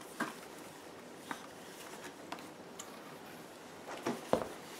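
Handling sounds as a full-face motorcycle helmet is pulled from its cloth bag and turned over: soft cloth rustling and a few light clicks of the plastic shell, with a louder knock near the end.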